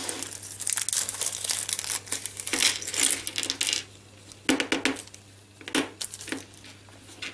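A small plastic hardware bag crinkling as it is handled, with small steel machine screws and washers tipping out and clinking onto the tabletop. The crinkling and clicking is dense for the first few seconds, then thins to a few separate clicks.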